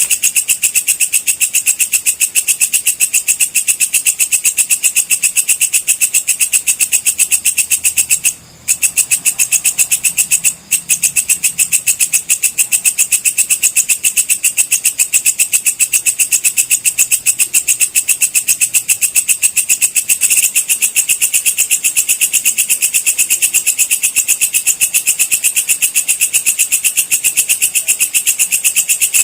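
Walang kecek insect calling: a fast, even train of shrill, high-pitched chirping pulses that keeps going, broken twice by short pauses about eight and a half and ten and a half seconds in.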